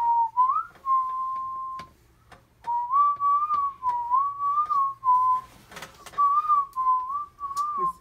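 A person whistling a tune: a single clear note wavering up and down around one pitch, in three phrases with short breaks between them.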